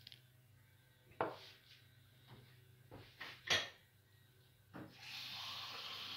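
A few light knocks of things handled on a wooden kitchen counter. The loudest, about three and a half seconds in, fits a glass salt shaker being set down after salting the fish. A steady hiss starts about a second before the end.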